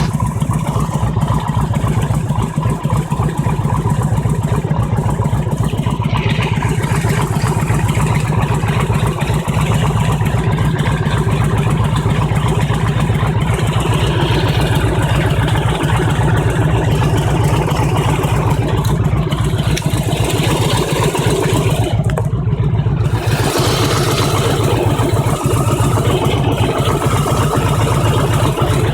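Harley-Davidson V-twin engine running at a steady idle, hot, with a knock that the owner names engine knock.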